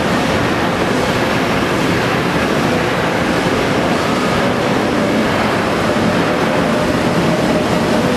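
Loud, steady roar of forge-shop equipment, with a faint hum running under it and no hammer blows.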